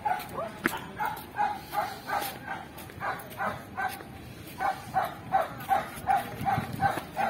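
A dog barking repeatedly, a little under three short barks a second, all at the same pitch, with a brief pause about four seconds in.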